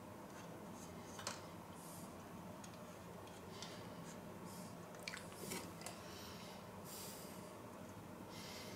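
Faint handling sounds: a few light clicks and knocks from hands working the metal ring of a springform pan, about a second in and again around the middle, with soft breathing puffs every second or two.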